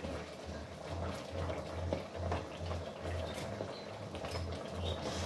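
Pork pieces boiling in a pineapple-juice sauce in an electric pot, bubbling, while a spatula stirs through them with small clicks and scrapes. A low hum pulses about two to three times a second underneath.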